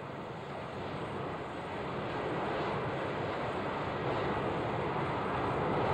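Steady rushing engine noise with no distinct tones, growing gradually louder.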